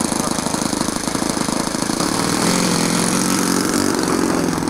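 Model airplane engine on a radio-controlled scale Zero fighter running with a fast, steady rattle of firing strokes. From about halfway through it settles onto a steadier, slightly louder note as the plane is let go to taxi.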